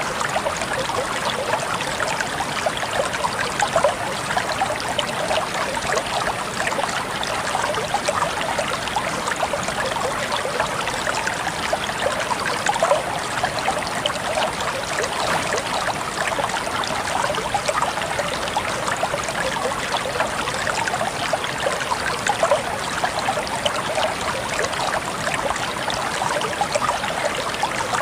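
Water flowing and trickling steadily, a continuous babble of small splashes like a gentle stream.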